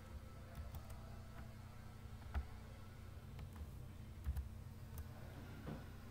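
Faint, irregular clicks of a computer mouse and keyboard being worked, over a low steady hum.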